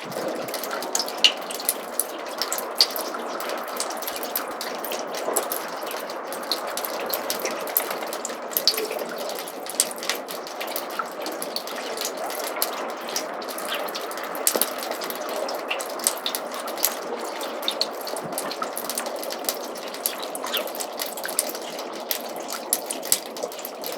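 Snowmelt water running and dripping in a roof gutter: a steady trickle with many quick, irregular drips.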